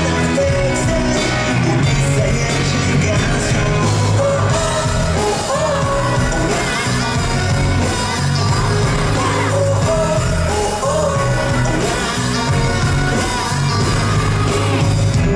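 Live pop-rock band music with a singing voice, played loud in a large hall, over a strong, steady bass line; it stops abruptly at the very end.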